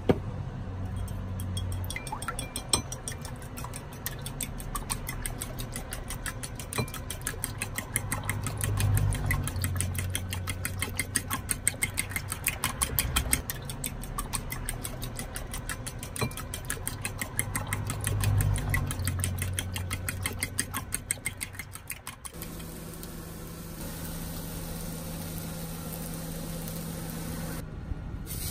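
Fork beating eggs in a ceramic bowl: rapid, regular clinks of the fork against the bowl over a low steady hum. About three-quarters of the way through the clinking stops and only the steady low hum remains.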